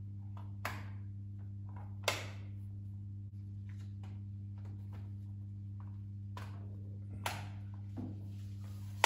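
About five short, sharp clicks and knocks as Nanoleaf Elements wood-look hexagon panels are pressed onto their wall mounts and connectors, the loudest about two seconds in. A steady low hum runs underneath.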